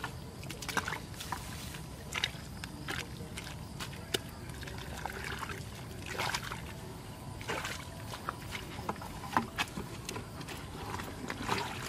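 Plastic bucket scooping muddy water from a shallow dug pit, with irregular sloshes and splashes.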